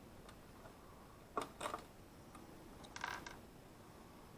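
Small clicks and a brief rattle from hand tools and wiring parts being handled: two sharp clicks about one and a half seconds in, then a short clattery rustle about three seconds in.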